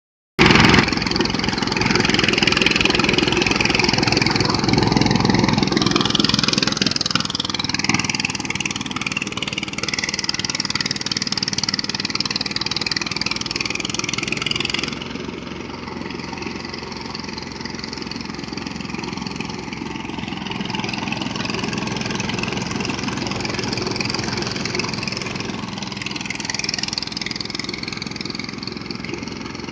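Motorised rice threshing machine running continuously: a steady engine drone under a dense hiss. The sound drops somewhat in level about halfway through.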